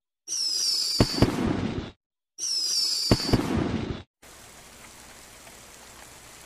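A stock whoosh-and-crackle sound effect played twice in a row, identical each time: a falling whistle with crackling pops and a couple of sharp thumps, each about a second and a half long. It is followed by a quieter steady hiss like falling rain.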